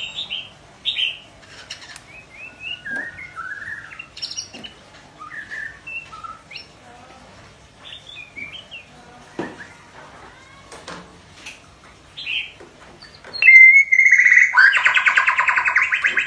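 Young white-rumped shama practicing its song: scattered short chirps and warbles with pauses, a few sharp clicks in between. Near the end a loud, rapid rattling trill starts and runs on.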